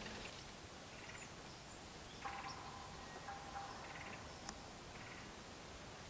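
Faint bird calls: several short rattling calls about a second apart, and a longer call holding a steady pitch about two seconds in. A single sharp tick sounds about four and a half seconds in.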